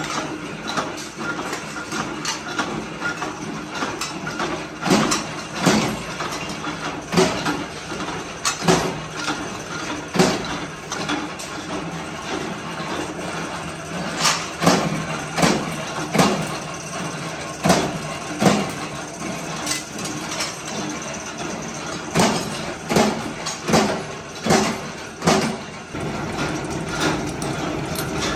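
Steady hum of a flywheel-driven power press running in a metalworking shop, over repeated sharp clanks of scrap compressor steel, each about a second apart with a lull near the middle.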